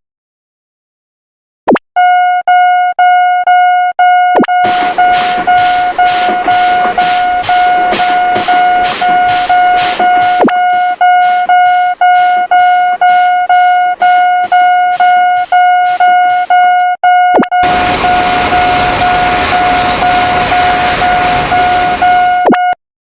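Railroad crossing warning bell ringing about twice a second, one steady tone with overtones. A train passes with rhythmic clatter of wheels over rail joints. Later a second train passes with a steady rushing noise, and the bell stops near the end.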